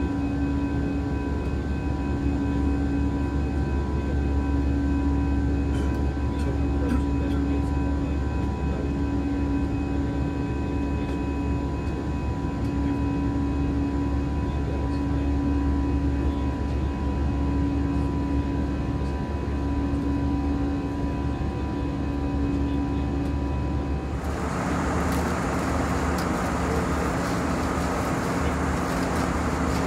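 Airbus A321 cabin noise in flight: a steady low rumble of engines and airflow with a steady hum that swells and fades about every two seconds. About 24 seconds in, the sound changes abruptly to a louder hiss.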